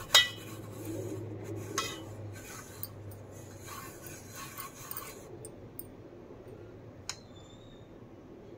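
Oil being rubbed around the inside of a cake mould by hand, irregular scratchy rubbing sounds, with a sharp knock of the mould just at the start. The rubbing stops after about five seconds, leaving a quiet stretch with one small tap near the end.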